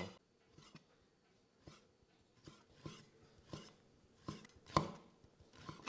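Cleaver slicing Chinese sausage on a wooden chopping block. About ten light, irregular knocks of the blade meet the board, with one louder knock toward the end.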